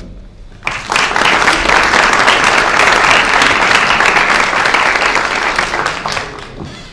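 Audience applauding: dense clapping that starts just under a second in, holds steady, and dies away near the end.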